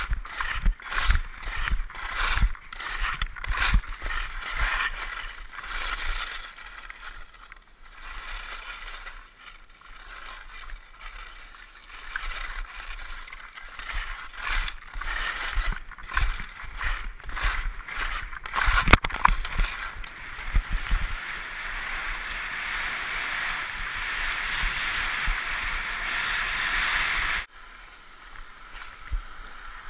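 Skis scraping on hard-packed snow through quick, rhythmic short turns, about two a second, then a long steady rush of skis sliding and air past the helmet that cuts off suddenly near the end.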